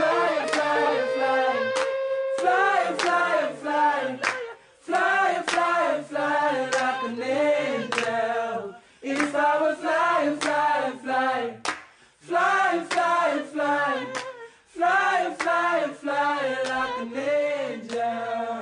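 Unaccompanied gospel singing: a voice sings short, wavering melodic phrases with brief pauses between them, over frequent sharp clicks.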